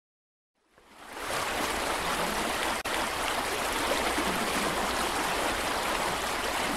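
Steady rush of running water, the sound effect for a syringe squirting saline to irrigate a surgical wound. It fades in about a second in and runs evenly, with a brief dropout near the middle.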